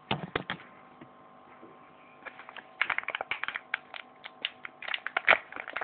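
Quick, irregular light clicks and taps from handling: a short cluster at the start, then a denser run from about two seconds in, over a faint steady hum.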